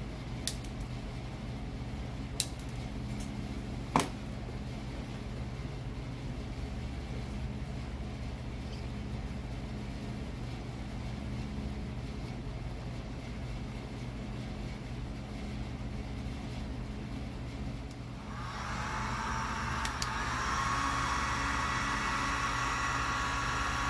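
Steady low mechanical hum with a few sharp clicks in the first seconds. About 18 seconds in, a heat gun switches on and keeps blowing, with a hiss and a steady whine, as it shrinks heat-shrink tubing over the capped light wires.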